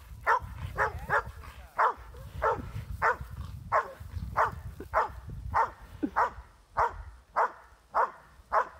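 A dog barking at a cow it is holding at bay: a steady run of about fifteen short barks, roughly one every half second or so.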